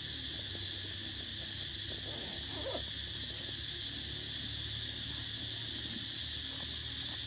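Steady high-pitched drone of forest insects, with a faint short call about two and a half seconds in.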